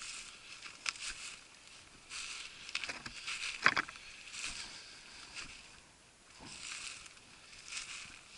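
Footsteps crunching through snow at a walking pace, with clothing rustling and twigs brushing past, and one louder crack a little under halfway through.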